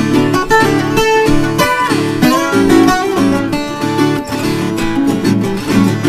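Two Brazilian ten-string violas caipiras playing a pagode, a traditional viola rhythm: quick plucked melodic runs over strummed chords.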